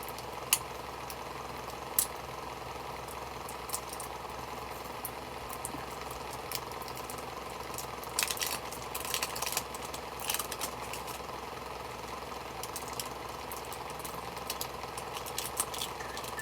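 A small plastic lip-oil package being handled and unwrapped: scattered clicks and crinkles, two sharp clicks early on and a cluster of crackling near the middle, over a steady background hum.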